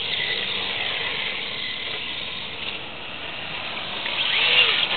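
1/10-scale RC drift car driving on asphalt, its motor whining over a hiss of tyres. The sound eases off and builds again near the end.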